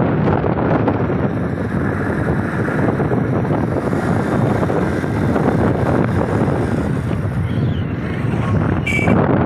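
Wind rushing over the microphone of a moving motorcycle, a loud, steady noise that drowns out the bike's engine. A brief high tone sounds near the end.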